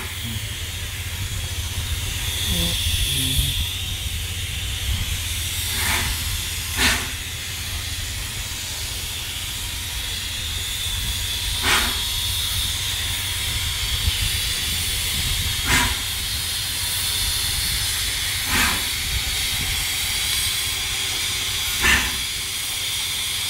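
Steam locomotive standing with steam hissing steadily, broken by about six short, sharp pops at irregular intervals.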